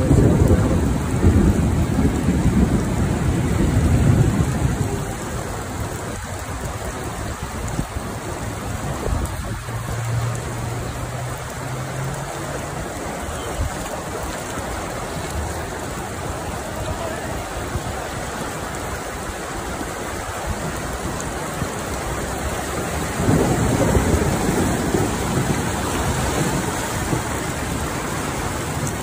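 Floodwater rushing along a street: a steady noisy rush of water, with louder low rumbling in the first few seconds and again near the end.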